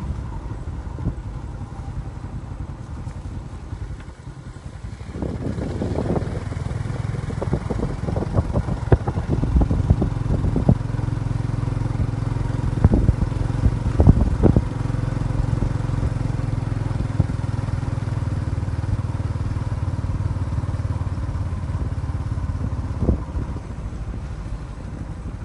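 An engine running steadily, louder from about five seconds in, with scattered clattering knocks over it.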